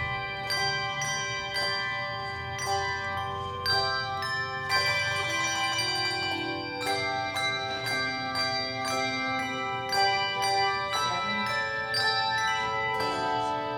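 A hand bell choir playing a Christmas song: handbells struck note by note in a steady rhythm, each note ringing on and overlapping the next.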